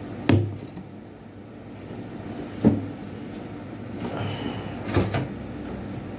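A person eating close to the microphone: four sharp, short mouth or bite sounds at irregular intervals, two of them close together, over a steady low background hum.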